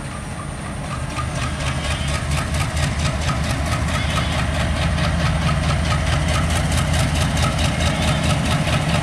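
Diesel locomotive engine running under power as it pulls a passenger train away from the station, growing louder as it approaches, with a fast, even rhythmic clatter over the low drone.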